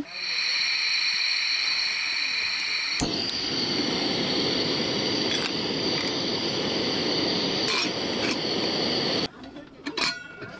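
Portable gas camping stove burner running under a stainless steel kettle of water, a steady hiss. About three seconds in it becomes a fuller rushing sound with a low rumble as the kettle's water heats. It cuts off abruptly near the end, leaving quieter background and a single click.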